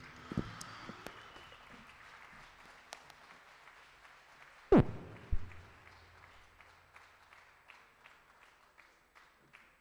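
Audience applause that fades into a few scattered claps. A loud low thump comes about halfway through, with a smaller one just after.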